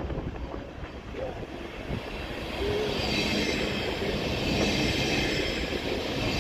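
DB Intercity 2 double-deck train rolling past at close range on curved track: a low rumble of wheels and coaches that grows louder about three seconds in, when the coaches draw level, with a high hiss and faint squeal of wheels on the rails.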